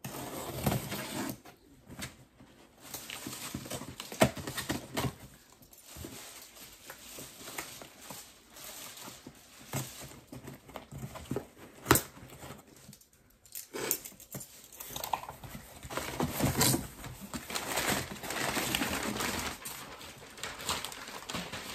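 A cardboard parcel and its plastic-wrapped contents being opened and handled by hand: uneven rustling and crinkling of packaging, with scattered sharp clicks and knocks.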